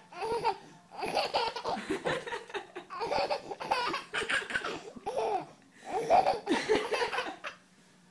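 A baby laughing hard in about four bouts of belly laughter, with short breaths between them.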